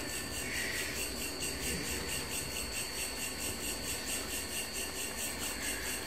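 Night insects, crickets, chirping in a fast, even pulse, with a low steady hum underneath.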